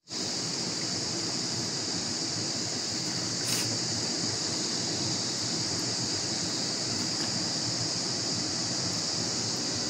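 Steady rushing of a shallow stream flowing over rocks, an even hiss with a bright high edge, with one faint tick about three and a half seconds in.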